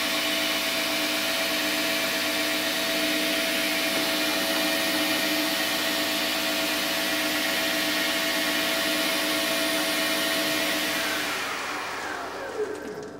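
A 10x22 metal lathe running at speed, a steady whine of motor and drive with several held tones. Near the end it is switched off, and the pitch falls as the spindle coasts to a stop.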